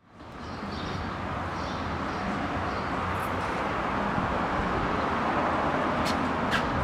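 Steady outdoor background noise that fades in over the first second, with two brief sharp clicks near the end.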